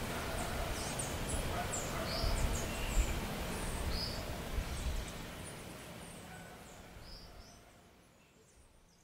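Outdoor ambience: small birds chirping here and there over a steady hiss, with a low rumble in the first half, the whole fading out toward the end.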